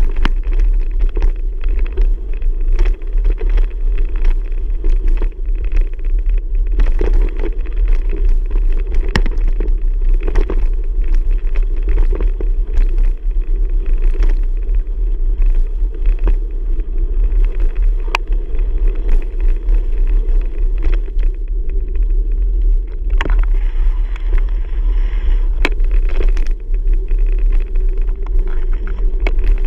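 Steady rumble of wind on the microphone during a bicycle ride, with frequent small clicks and knocks from the bike and camera jolting over the trail.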